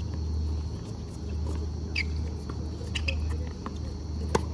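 A tennis doubles rally on a hard court: a few sharp pops of the ball off racket strings and the court, the loudest near the end, with short squeaks from shoes on the court, over a steady low hum.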